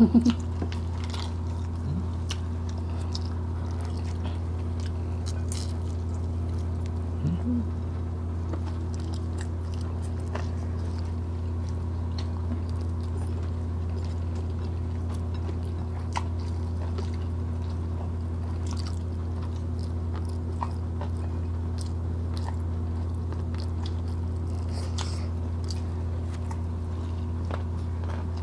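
People eating with their hands: scattered faint clicks and smacks of chewing and of tearing grilled chicken, over a steady low hum. A brief voiced murmur about seven seconds in.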